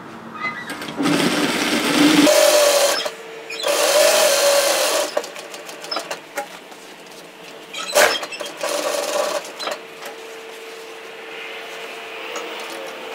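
Industrial single-needle lockstitch sewing machine stitching in short stop-start runs, picking up speed about two seconds in. A single sharp click near the middle, and a faint steady hum between the runs.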